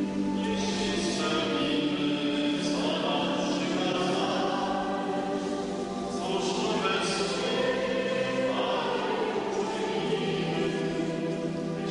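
Many voices singing a slow church hymn in long held notes, moving to a new pitch every second or two.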